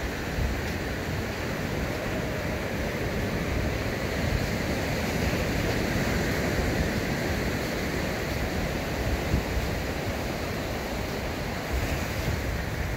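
Ocean surf washing up a sandy beach, a steady rushing that swells a little midway, with wind buffeting the microphone.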